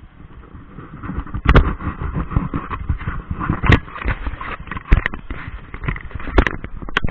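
Whitewater rushing and splashing around an inflatable paddle raft in a rapid, with frequent sharp knocks and thumps as water slaps against the raft and the camera. It grows louder about a second and a half in.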